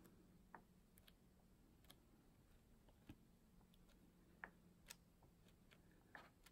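Faint, irregular soft flicks and rustles of paperback pages being turned by hand, over near-silent room tone.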